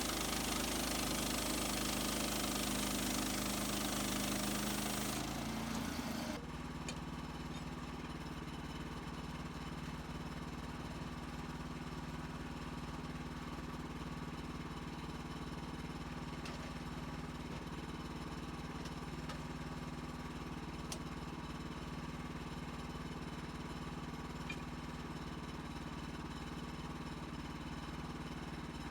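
HM130 Max portable band sawmill's gas engine running. A loud hiss over the engine cuts off abruptly about six seconds in, and the engine then runs on steadily, a little quieter, with a few faint ticks.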